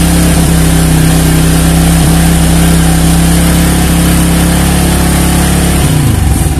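Yamaha Old Vixion's single-cylinder four-stroke engine held at raised revs on a part-open throttle, less than half, running steadily while the battery charging voltage is checked. About six seconds in, the revs drop back toward idle.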